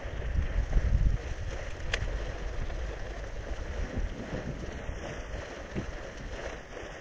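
Wind buffeting the microphone, a low rumble that gusts hardest about a second in over a steady rushing hiss. A single sharp click near two seconds.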